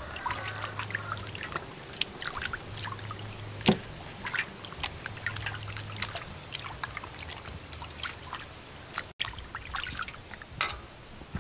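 Water splashing and sloshing in an aluminium basin as hands rub and turn chunks of raw beef to wash them, with one sharper knock about a third of the way through.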